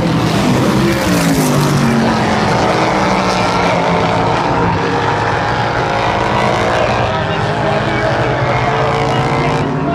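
Several oval-track race car engines running hard as a pack goes around the speedway. Their pitch falls in the first second or so and climbs again near the end as the cars pass and accelerate.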